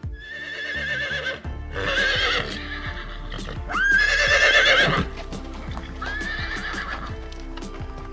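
A horse whinnying four times, each call high and wavering in pitch, the third the loudest, over background music.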